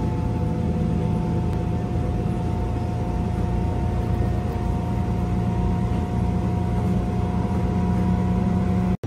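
Steady low rumble and a constant motor hum heard from inside a moving passenger vehicle.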